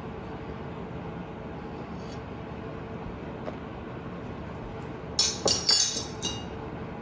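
A measuring spoon clinking against a bowl about five times in quick succession, a little over five seconds in, as an ingredient is tapped in.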